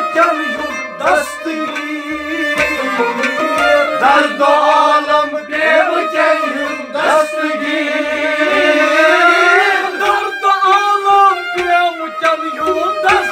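Kashmiri Sufi music: sarangi, rabab and harmonium playing a melodic passage over a regular beat on a clay pot drum.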